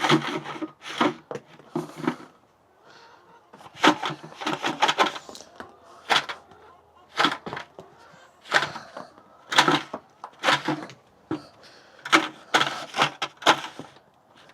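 A run of irregular knocks, cracks and rustles, like objects being handled and set down, coming in clusters with short quiet gaps.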